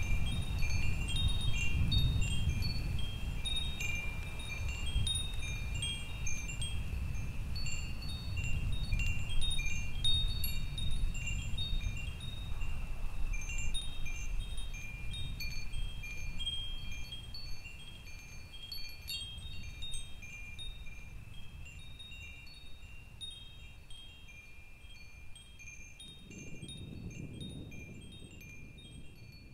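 Wind chimes tinkling in many short, irregular ringing notes over a low rumble; the rumble fades away by the middle and swells briefly again near the end, and the whole slowly grows quieter.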